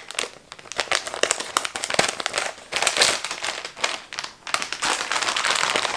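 Crinkling and crackling of a sealed clear plastic bag being cut open with scissors and pulled apart to get the contents out, with many quick irregular clicks.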